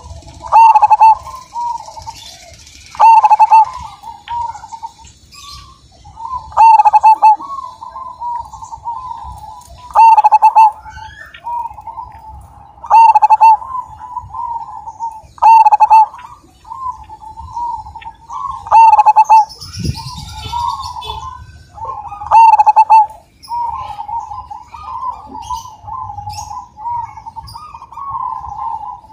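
Zebra dove (perkutut) cooing without a break: a rolling, trilling run of notes around one pitch, punctuated by eight loud accented coos that come roughly every three seconds.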